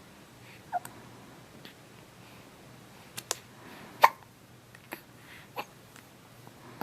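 A baby hiccuping: about six short, sharp hiccups at uneven intervals, the loudest about four seconds in.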